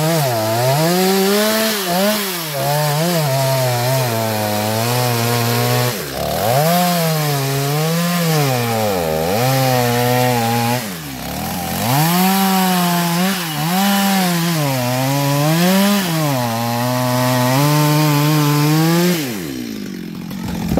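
Chainsaw cutting wood, its engine pitch sagging and rising again over and over as the chain bites and frees. Near the end the saw is let off and winds down to a stop.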